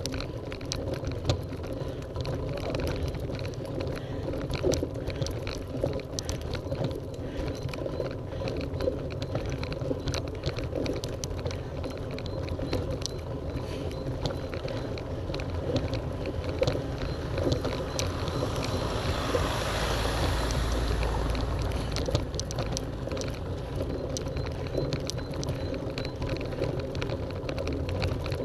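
Bicycle rattling over cobblestones at slow climbing speed, a steady clatter of small knocks. About two-thirds of the way in, a gust of wind buffets the microphone for a few seconds.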